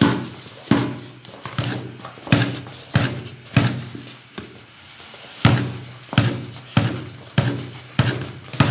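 A metal spoon knocking against a large aluminium cooking pot in a steady rhythm, about three strikes every two seconds, each strike leaving a brief metallic ring. The rice is being mashed continuously against the pot over high heat to work it smooth and sticky.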